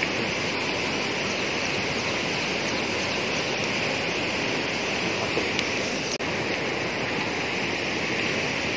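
Steady rush of fast-flowing water churning white along a stone embankment.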